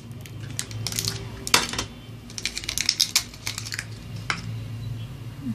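Plastic Play-Doh tub being opened and handled: scattered sharp clicks and taps of the plastic lid and container, with a quick run of them about halfway through.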